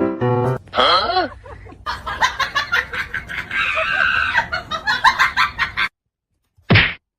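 Animal calls with a busy, clattering background that cut off suddenly about six seconds in, followed by one short sharp noise.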